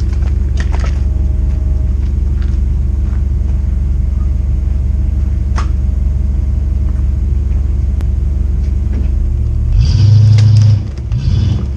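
Class A motorhome under way, heard from inside the cab: a steady low engine and road drone, with a louder, rougher surge lasting about a second near the end.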